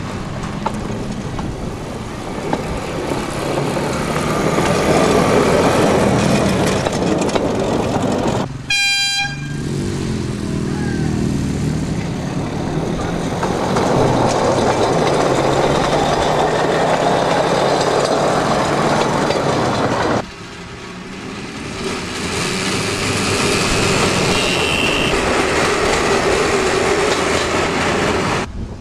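Motorized rail handcars running along narrow-gauge track one after another, their small engines humming steadily as they pass. A short horn toot sounds about nine seconds in.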